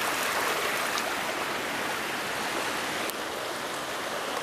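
Shallow creek water running steadily, with a sharp click about three seconds in.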